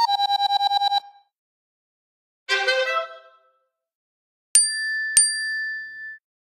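Three short iPhone alert tones played one after another. First comes about a second of rapid trilling beeps, then a quick falling run of notes, then two bell-like dings a little over half a second apart that ring on for about a second.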